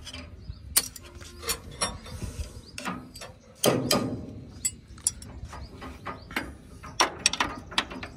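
Irregular metallic clicks and knocks from a wrench and a roller chain as the drive chain on a combine harvester's sprocket is fitted and tensioned. One heavier clank comes about three and a half seconds in, and a quick run of clicks comes near the end.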